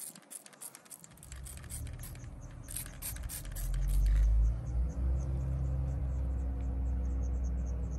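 Rapid clicking for the first few seconds, then a steady low mechanical rumble with a faint hum sets in about three and a half seconds in, joined by light, regular ticking.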